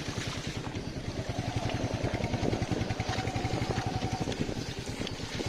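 Royal Enfield Meteor 350's single-cylinder engine running at an even, steady beat while riding a rough, broken road.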